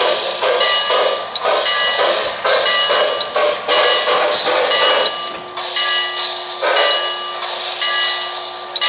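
O-scale model New York Central Hudson steam locomotive's sound system chuffing in a steady rhythm, about two chuffs a second, as the engine runs. A steady low hum joins about five seconds in.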